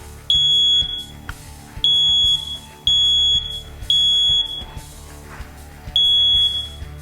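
Smoke alarm sounding on its test: loud, high-pitched beeps about half a second long in the three-beeps-then-pause pattern, five beeps in all. The test shows the alarm is in working order.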